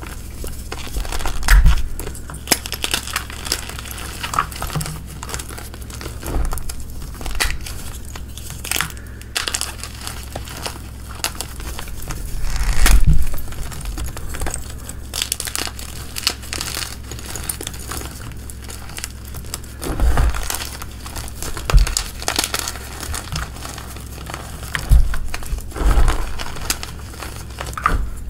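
Hands crushing chunks of block gym chalk in loose powder: a steady run of dry crackling and crumbling crunches, with several louder crunches spread through.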